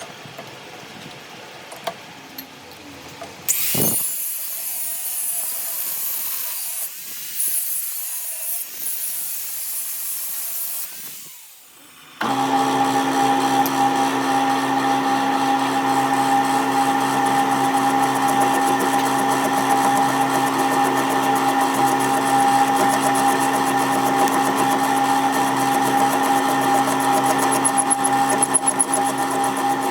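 Power tools used in metal repair work: a few seconds of hissing, scraping tool noise, then about twelve seconds in a machine motor starts and runs steadily with an even, unchanging hum.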